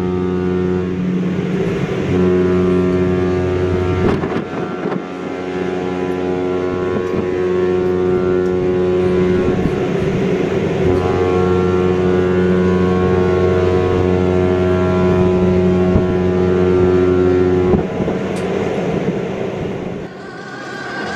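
Cruise ship's horn (Mein Schiff 6) sounding several long, deep blasts as a departure signal on leaving port; the last blast stops about eighteen seconds in.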